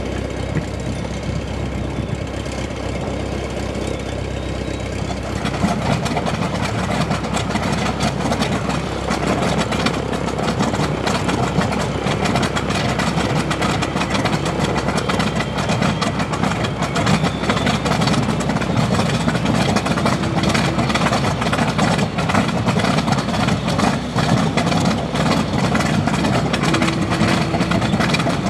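A B-25 Mitchell's Wright R-2600 fourteen-cylinder radial engine starting up. A steady mechanical hum is followed about five seconds in by the engine catching and settling into a loud, uneven idle.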